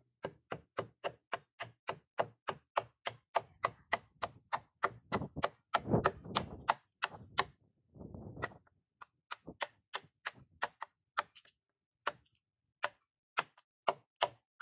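Restored axe chopping into a wooden board: quick sharp strikes of the blade into the wood, about four a second, with a couple of longer rough stretches near the middle, thinning to scattered single strikes in the last few seconds.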